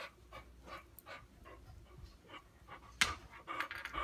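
Boxer dog panting in quick short breaths, about three a second, while working pebbles on a coffee table with his mouth. About three seconds in there is a sharp click, the loudest sound, followed by a rapid run of breaths.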